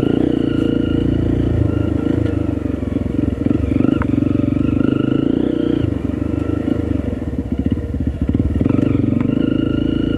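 Honda CRF trail bike's freshly built 301 cc engine running while being run in, ridden at low speed up a forest dirt trail. The engine note rises and eases with the throttle over the rough ground, with a sharp click about four seconds in.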